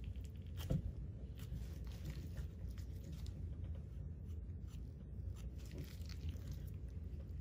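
Scalpel cutting through the soft palate of a dissected dog head: faint scattered clicks and scrapes of the blade in tissue and gloved hands working, over a low steady hum.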